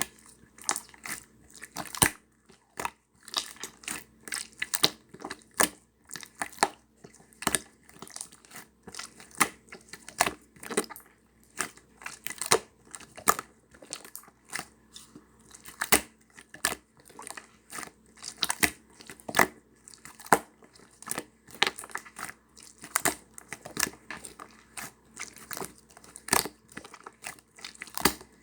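Slime being worked by hand, giving a continuous run of sharp, irregular crackles and clicks, roughly two or three a second.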